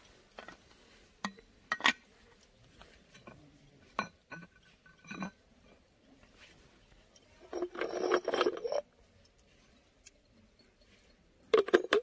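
Light clinks and knocks of coffee gear being handled: a stainless thermos and its cup, and a pour-over dripper on a clear server. A longer rattling clatter comes about eight seconds in, and a quick run of clinks near the end as the dripper is lifted off the server.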